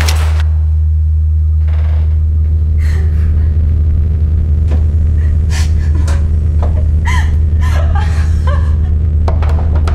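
Horror-film sound design: a loud, steady low rumbling drone throughout, opened by a short sharp noise. From about halfway on, short laughter-like voice sounds come and go over it.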